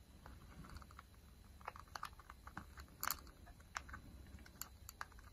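Faint, scattered crackles and clicks of a clear plastic texture sheet flexing as soft polymer clay is peeled off it, with a sharper click about three seconds in.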